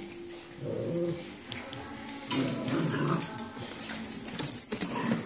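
A small dog vocalizing in play, in two spells of whiny, grumbling sounds about a second and three seconds in, while it tussles with a kitten.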